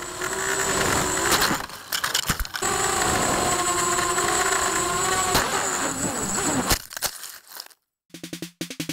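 Walkera Runner 250 quadcopter's motors and propellers whining in flight over a rush of wind noise, the pitch shifting with the throttle. About seven seconds in there is a sharp knock as it crashes into the grass, and the motor sound dies away. Drum-led music starts near the end.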